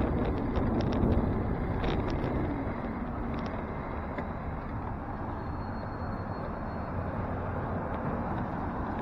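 Wind and rattling clicks on a bicycle-mounted camera die away over the first few seconds as the bike slows at an intersection, leaving steady city traffic noise as cars drive across in front.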